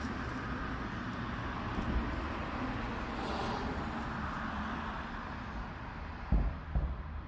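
Street traffic noise: a steady rumble of passing vehicles, easing off toward the end. Two short, low thumps come close together near the end.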